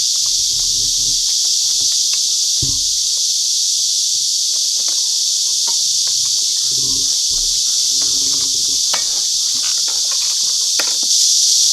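Steady, high-pitched chorus of insects buzzing without a break, with a few faint clicks underneath.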